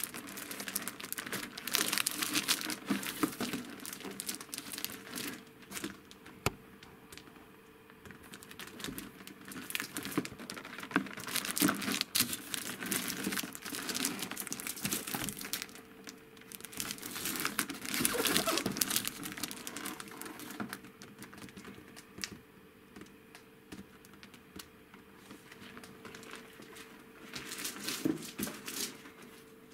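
Plastic shrink-wrap on a boxed toy crinkling as it is handled, in irregular bursts a few seconds apart. A faint steady hum runs underneath.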